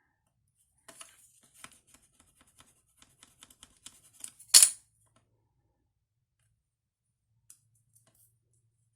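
Stiff paper and card being worked by hand: a quick run of small clicks and crackles, ending in one sharp, loud crackle about four and a half seconds in, then a couple of faint ticks.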